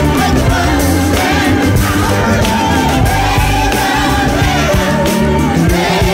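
Music: a gospel-rock song with a woman's lead voice backed by a gospel choir and band, singing on without a break.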